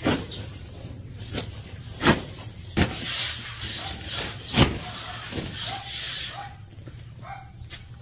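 Unhusked rice grain rustling as it is spread out by hand over a drying tarp, with a few sharp knocks along the way.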